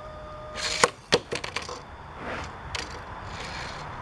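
Diecast toy cars and plastic track being handled: a cluster of sharp hard clicks and clacks about a second in, then softer rustling.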